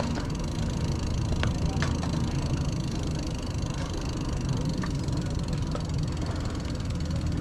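Mountain bike rolling slowly over concrete: a steady low rumble of the tyres, with a couple of light clicks from the bike between one and two seconds in.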